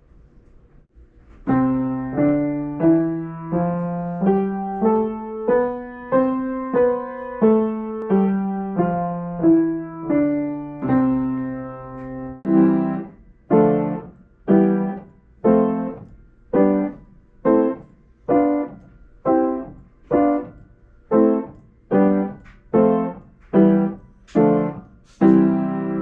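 Upright piano: a C scale played with both hands, stepping up and back down note by note. Then a run of short, detached chords, about one every two-thirds of a second, the last one held.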